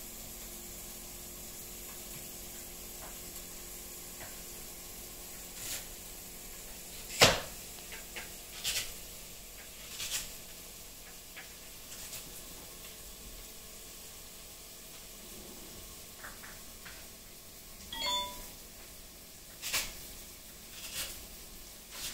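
Steady background hiss with a few sharp clicks and knocks scattered through, the loudest about seven seconds in, and a brief squeak about eighteen seconds in.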